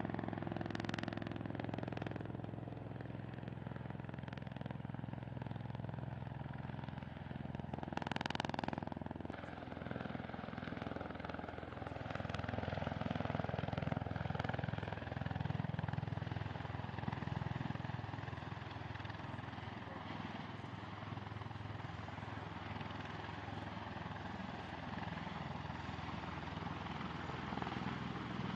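V-22 Osprey tiltrotor's twin turboshaft engines and rotors running, a steady low drone, with a brief louder rush about eight seconds in.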